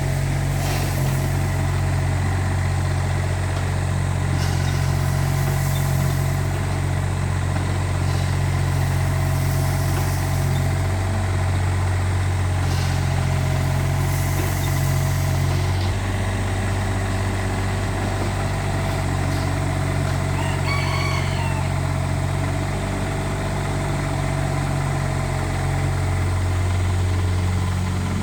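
Mini excavator's diesel engine running steadily, its pitch shifting about halfway through. A rooster crows once about two-thirds of the way in.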